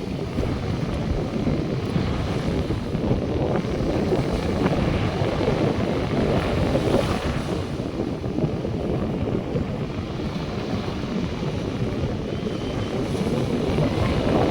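North Sea surf washing onto the beach, mixed with wind buffeting the microphone: a steady low noise that swells and eases, with no tone to it.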